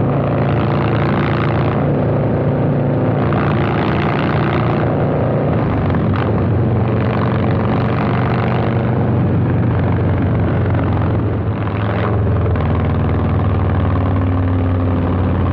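Harley-Davidson Low Rider S's 117 Milwaukee-Eight V-twin running loud through a Two Brothers 2-into-1 exhaust while riding, a steady low engine note with rushing noise swelling and fading every few seconds.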